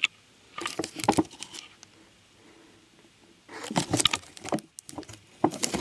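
Crinkling and clicking of snack packaging being handled, in two short bursts about a second in and about four seconds in, with a few single clicks between.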